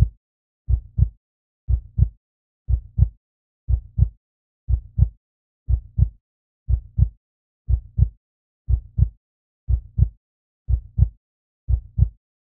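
An added soundtrack beat of paired low thumps, one pair about every second, in a heartbeat-like rhythm.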